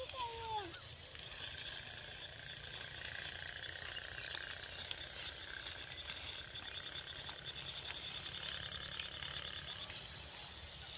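Dry, cut wheat stalks crackling and rustling as they are gathered up by hand, with many small crisp snaps.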